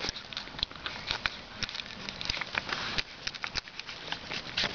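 Two-week-old Boston Terrier puppies moving about in the litter, making a dense scatter of small, irregular clicks.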